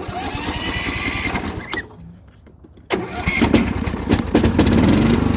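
Riding lawn mower's engine cranked by its electric starter for about two seconds without catching. It is cranked again about three seconds in, fires, and keeps running steadily.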